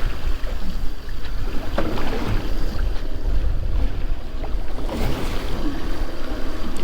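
Wind buffeting the microphone as a low, steady rumble, with the wash of the sea around a boat.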